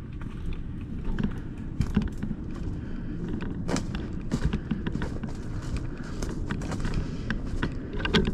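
Footsteps of a person walking, with irregular sharp clicks and snaps over a steady low rumble.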